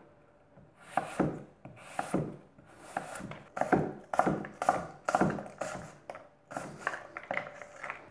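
Chef's knife dicing an apple on a cutting board: a quick run of chopping strokes, about two to three a second, starting about a second in.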